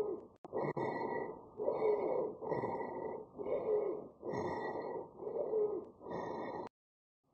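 Wheezing lung sounds: rapid breaths, about one a second, each carrying a high-pitched musical whistle over the rushing breath noise. It cuts off near the end.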